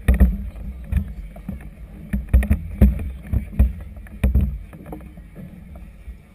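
Choppy river water slapping against the hull of a moored floating clubhouse: irregular dull knocks and splashes, several a second, easing off for a stretch near the end.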